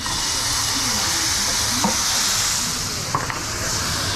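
Food sizzling in a hot pan, the sizzle starting suddenly as it goes in and easing off near the end, with two light metal clinks of a utensil.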